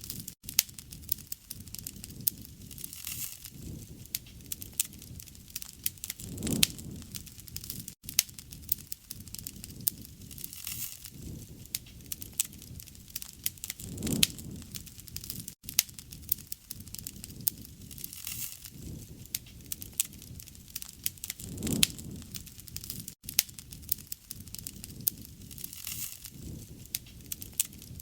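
Campfire burning, with dense sharp crackles and pops over a soft low rush. The same short stretch of fire sound repeats about every seven and a half seconds.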